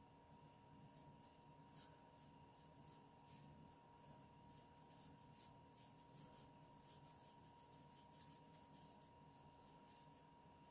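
Faint, quick strokes of a fine-pointed watercolour brush on Arches 140 lb watercolour paper: a string of short, soft, irregular scratches as fur is laid in with flicked strokes. A faint steady tone runs under it.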